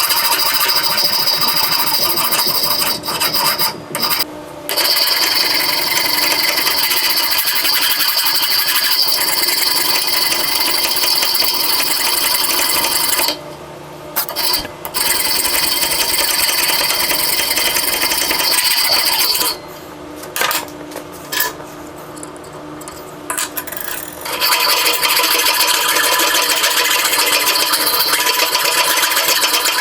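Metal file rasping on a small metal pin as it is shaped into a ratchet drive pin, in long continuous stretches broken by a few short pauses.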